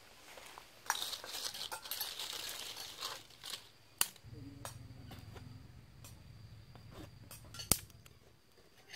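Dry twigs and leaves crackling and rustling as they are handled. Then comes a small twig fire burning quietly, with a few sharp pops, the loudest near the end.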